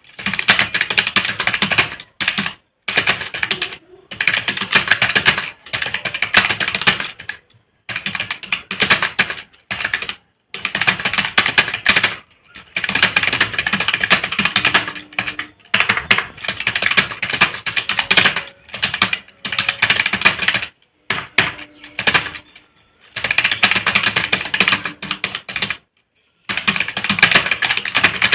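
Fast typing on a computer keyboard: dense runs of keystrokes lasting a second or two, with short pauses between them.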